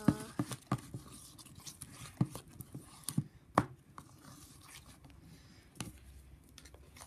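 Plastic spoon stirring thick, sticky slime mixture in a bowl, scraping through it and clacking sharply against the bowl's side several times, loudest near the start and about three and a half seconds in.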